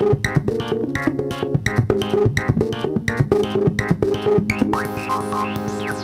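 Modular synthesizer sequence played through a home-etched PCB copy of the Yusynth Steiner-Parker voltage-controlled filter: a rhythm of short, percussive pitched notes, about three a second. Near the end the notes give way to a held, buzzing tone with a rising filter sweep.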